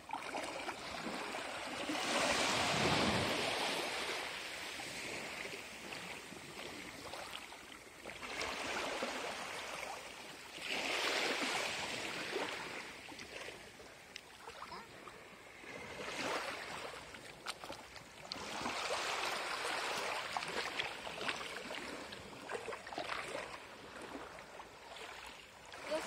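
Sea waves washing in on the shore, a rushing hiss that swells and fades every few seconds.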